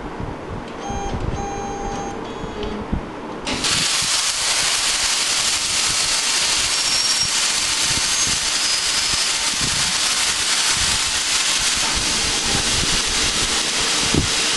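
Air plasma cutter (Fragram Cut 40 on a portable CNC cutting machine) firing about three and a half seconds in: a sudden, steady loud hiss of the plasma arc and compressed air as the torch cuts steel plate. Before it there is only a low hum with a few faint short tones.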